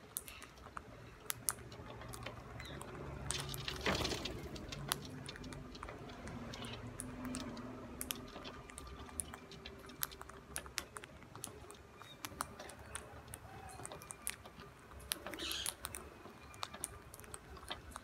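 Rose-ringed parakeets cracking seeds and pecking at grain on concrete: a steady run of irregular sharp clicks and taps. A short louder rustle about four seconds in, and again later.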